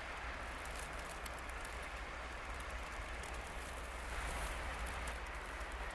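Steady rush of wind and driving sleet, with a low rumble of wind buffeting the microphone.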